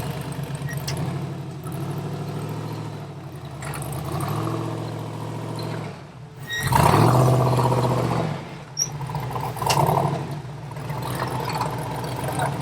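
Off-road 4x4's engine running and revving in surges while rock crawling, the strongest rev about seven seconds in.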